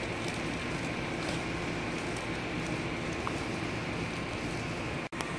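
Thick New York strip steak sizzling on a charcoal kettle grill's grate: a steady hiss with faint crackles, broken by a brief dropout near the end.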